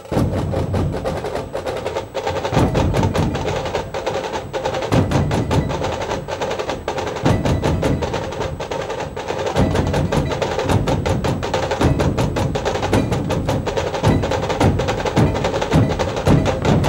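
Maharashtrian dhol troupe drumming: many large barrel-shaped dhol drums beaten with sticks in a fast, driving rhythm, with sharp high strokes over heavy low beats that grow stronger from about two seconds in.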